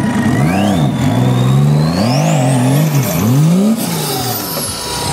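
Nissan off-road 4x4's engine revving up and down repeatedly in several quick blips as the driver works the throttle to climb a steep muddy bank. A thin high whistle climbs steadily in pitch through the first part and falls away near the end.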